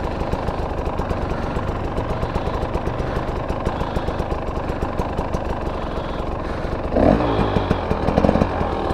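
KTM 300 EXC two-stroke dirt bike engine running steadily at low revs. Its rapid, even exhaust pulses are heard, and a brief sound rises and falls in pitch about seven seconds in.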